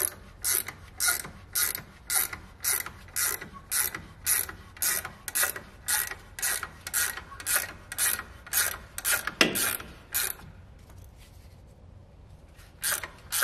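Hand ratchet backing out the release bolt of a semi-truck's air spring brake chamber, a burst of clicks with each swing of the handle, about twice a second. It pauses for about two seconds near the end, then the clicking starts again. Backing the bolt out lets the chamber's push rod extend.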